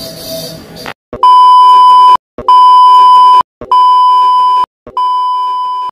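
Test-tone beep of a TV colour-bar test pattern: one steady high tone sounded four times, each about a second long with short breaks, starting about a second in. Each beep begins with a short click, and the last is a little quieter.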